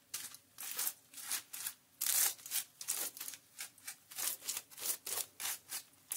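Tint brush strokes spreading bleach over a strand of hair laid on aluminium foil: a quick run of scratchy brushing sounds, about three strokes a second.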